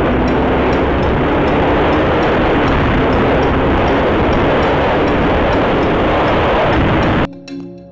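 Bajaj Pulsar AS200 motorcycle engine running at speed under heavy wind rush on the camera microphone, its note holding fairly steady. The sound cuts off abruptly near the end.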